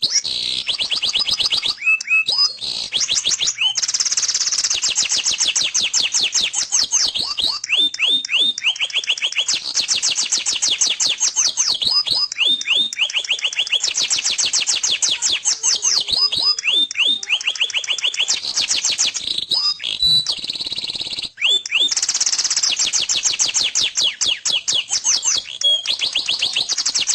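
Domestic canary singing a long, loud, high-pitched song of fast rolling trills and rapidly repeated chirps, switching from one trill to the next every second or two.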